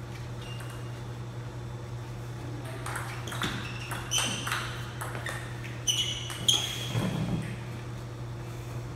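Table tennis rally: the ball clicks sharply off the rackets and the table in a run of quick pings from about three seconds in until about seven seconds in. A steady low hum runs underneath.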